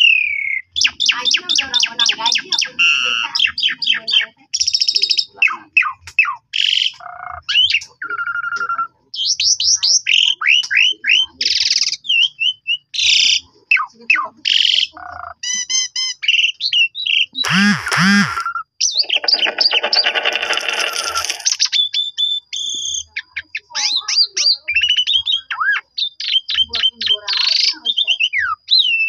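Asian pied starling (jalak suren) singing a long, varied song. It mixes gliding whistles, fast trills, rattles and harsh chatter, with a loud harsh chattering stretch a little past the middle.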